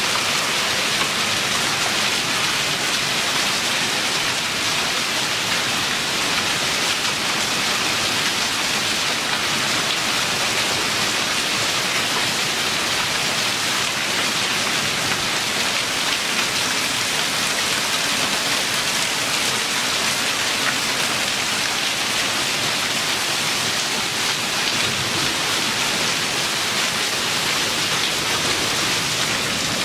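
Heavy downpour of rain mixed with hail, with water streaming off a tile roof edge: a loud, steady hiss that holds even throughout.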